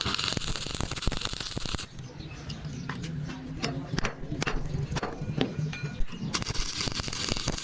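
Welding arc crackling and hissing in two bursts, one at the start and one from about six seconds in. Between them come sharp clicks and ticks.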